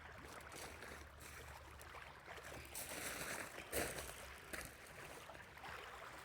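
Faint water lapping and swirling against a dock, with a single light knock a little past halfway.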